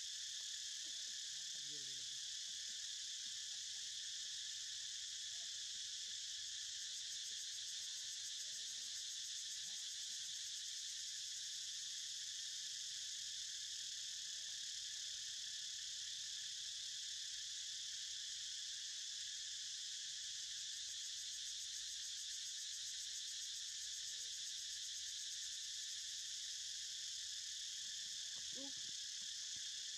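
Steady, high-pitched chorus of many insects droning without a break.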